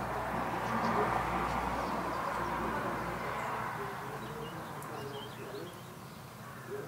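Outdoor garden ambience: a broad rushing noise with a low rumble swells about a second in and fades away over the next few seconds, while birds call faintly in the background.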